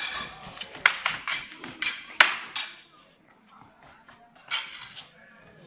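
Fighting spears clashing: a quick run of about six sharp clacks and knocks, the loudest about two seconds in, then a pause and one more strike near the end.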